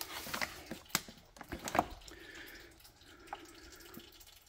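Handling noise: a few scattered light clicks and paper crinkles as a new power steering pump is turned over on crumpled packing paper.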